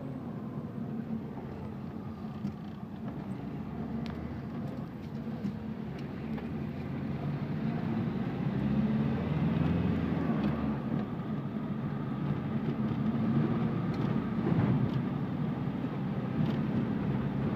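Engine and road noise heard inside a moving car, a steady low hum that grows louder about halfway through.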